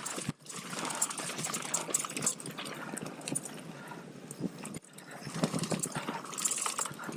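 Mountain bike rolling down a rough, rocky trail: tyres crunching over dirt and stones, with irregular knocks and rattles from the bike.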